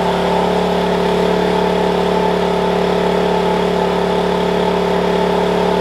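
Wen 56203i inverter generator's engine running at a steady, even pitch with eco mode off, under load from a portable air conditioner whose compressor is running.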